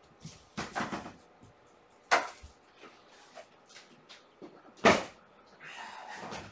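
A few sharp knocks and bumps like a cupboard or door closing, the loudest near five seconds in, followed by about a second of rustling near the end.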